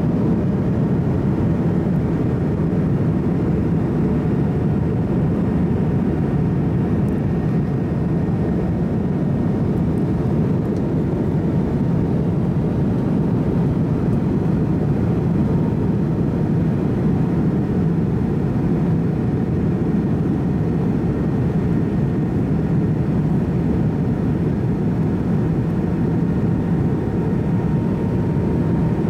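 Steady cabin noise inside an MD-88 airliner on approach: an even, low rumble of airflow and its rear-mounted Pratt & Whitney JT8D engines, with a faint thin whine above it.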